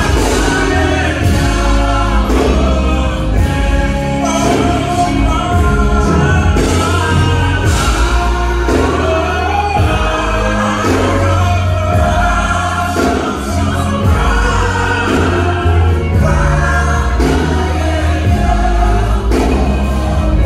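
Live gospel singing: two male lead singers on microphones with a choir behind them, over instrumental accompaniment.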